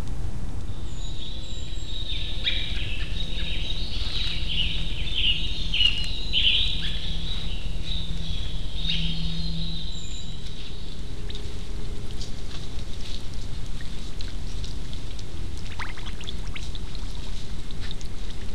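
A bird singing a rapid jumble of high chirps and twitters for several seconds, over a steady background hiss. The song stops about halfway through, leaving the hiss with a few faint clicks and rustles.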